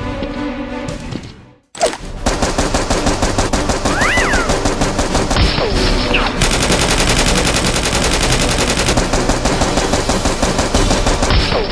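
Music fades out, and about two seconds in dense, rapid automatic gunfire begins and continues without a break, with a few rising and falling whizzing tones over it.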